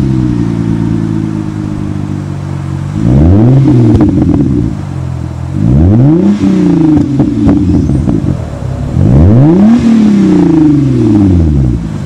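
Hyundai Genesis 3.8-litre V6 with a Magnaflow cat-back exhaust idling, then revved three times, each rev climbing and dropping back to idle, the last held longest. Short crackles follow as the revs fall.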